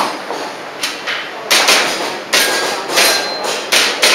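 Airsoft pistol firing a steady string of shots, about one every two-thirds of a second, with a brief metallic ring after a couple of them.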